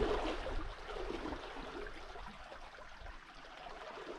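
Water rushing and trickling along a sailing catamaran's hulls as it moves under sail in light wind, fading gradually.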